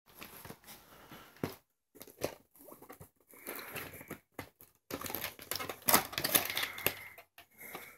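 Plastic VHS clamshell case being handled, set down and opened: irregular rustling, scraping and small clicks. The sound is loudest about six seconds in, as the case is opened.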